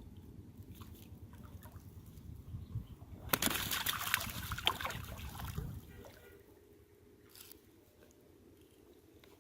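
Water splashing and sloshing in a burst of about two and a half seconds, starting a little over three seconds in, over a faint low background.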